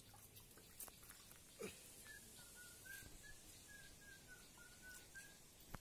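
Faint, quick series of short whistled notes, about three or four a second, starting about two seconds in and stopping shortly before the end, typical of a small bird calling. A couple of soft clicks come before it, over near-silent background.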